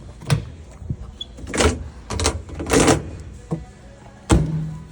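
Display washing machine doors and lids being opened and shut: a series of five or six hard clunks and knocks, the loudest one near the end.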